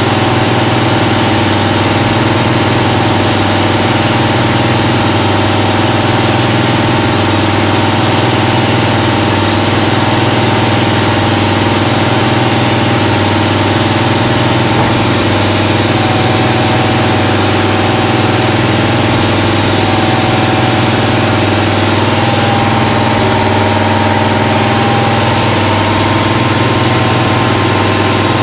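1995 Haas VF-3 CNC vertical mill cutting metal with an end mill: a steady spindle and cutting drone with several held tones, over an even hiss. Near the end the hiss softens a little.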